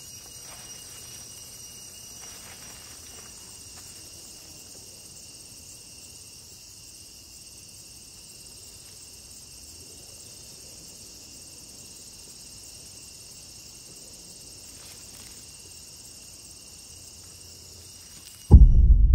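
Steady chorus of crickets and other insects, with a few faint soft footfalls on sand. Near the end a sudden loud, deep boom cuts the chorus off.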